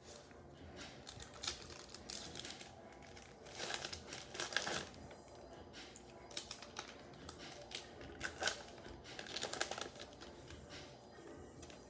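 Trading-card packs and cards being handled: wrapper crinkling and tearing with light clicks and taps of cards. There are two louder bursts of crinkling, about four seconds in and again around nine and a half seconds.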